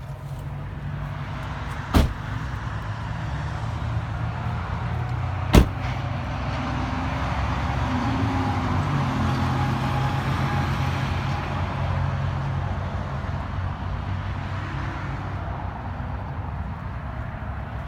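Steady low vehicle hum with road traffic passing, the traffic noise swelling in the middle and fading again. Two sharp knocks come about 2 and 5.5 seconds in.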